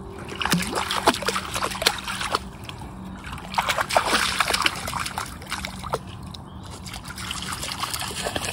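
A golden retriever splashing through a shallow puddle: repeated splashes and sloshing water as it wades, busiest about a second in and again around four seconds in.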